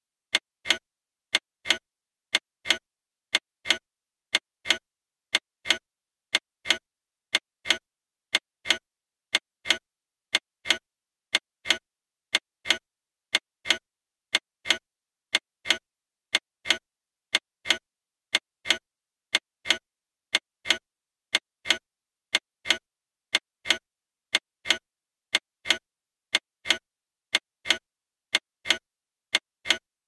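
Clock ticking steadily, about two sharp ticks a second with silence between them.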